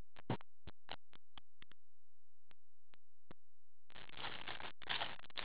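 Shrink-wrap on a hockey card box being handled: scattered light clicks, then about four seconds in the plastic crinkles and rustles steadily. A steady low hum runs underneath.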